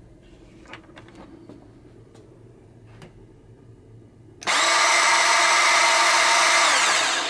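Makita 18 V cordless handheld bandsaw switched on about four seconds in and run free with no workpiece for roughly three seconds, a loud steady motor-and-blade whine, then winding down as the trigger is let go. Light handling clicks come before it.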